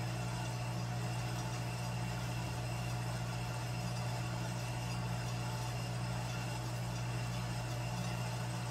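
Imextech electric drum coffee roaster running mid-roast: a steady, even mechanical hum.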